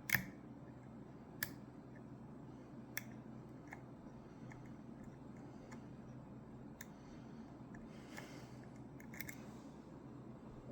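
Sharp metallic clicks and ticks of a lock pick and tension wrench working the pins of a Ruko 600 pin-tumbler lock. There are about half a dozen clicks a second or more apart, the loudest at the very start, with a brief scraping rustle near the end.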